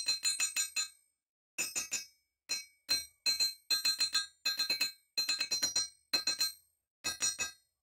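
A claw hammer strikes a thin rusty steel rod against a steel block. The strikes come in quick groups of three to five, each ringing high and metallic, with short pauses between the groups.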